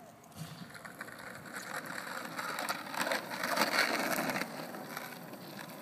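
Skateboard wheels rolling over rough asphalt: a grainy, crackling rumble that grows louder over the first few seconds, is loudest as the board passes close, then eases off a little.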